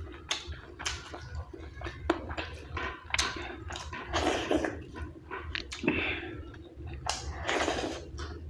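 Close-up chewing and wet squishing of a mouthful of dhido and chicken curry, in irregular bursts.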